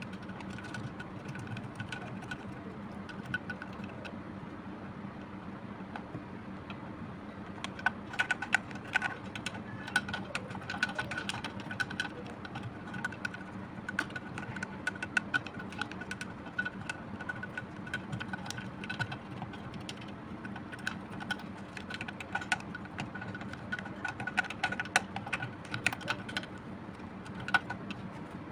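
Small brush scrubbing inside a plastic brake fluid reservoir to clean out old fluid residue: quick scratchy clicks of bristles and handle against the plastic, coming in dense runs from about eight seconds in, over a steady low hum.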